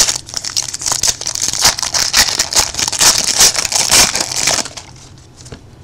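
Trading-card pack wrapper crinkling and rustling as it is handled and torn open, with cards shuffling; the crackle stops about four and a half seconds in.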